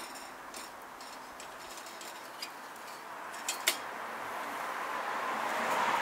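Pinecones burning in a small double-walled secondary-combustion wood stove, with a few sharp clicks as metal tongs feed more in. A rushing noise builds toward the end as the flames flare up.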